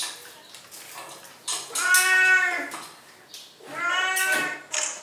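Two long, drawn-out animal cries, each close to a second long, about two seconds apart. Short clicks and knocks sound between them.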